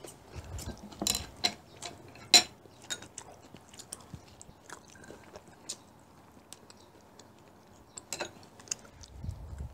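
Eating sounds: chewing, with metal chopsticks and spoons clicking and scraping against ceramic rice bowls and plates. The sharpest click comes about two and a half seconds in.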